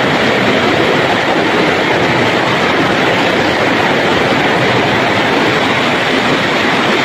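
A fast-flowing river rushing over rocks: a loud, even rush of water with no breaks.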